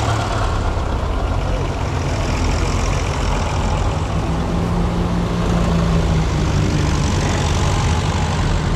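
Vintage tractors driving past one after another, their engines running steadily at road pace, with one engine's note standing out for a couple of seconds around the middle as it passes.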